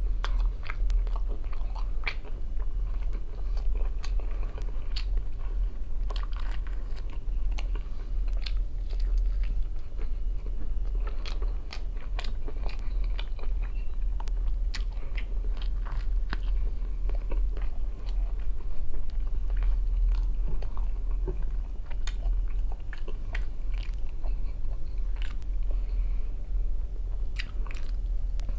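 Close-up chewing and biting of a smoked turkey leg: wet smacks and clicks of the mouth come again and again throughout, with a bite near the end, over a steady low hum.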